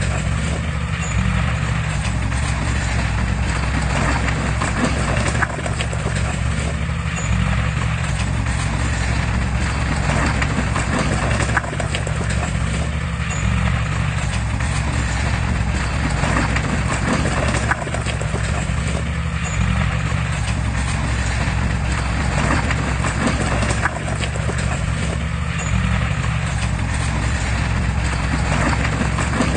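Crawler bulldozer's diesel engine running steadily under a continuous rattle and clanking of its steel tracks; the whole pattern repeats about every six seconds.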